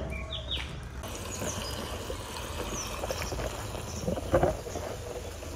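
Diesel running from a drum through a hose into a tractor's fuel tank: a steady, faint trickling.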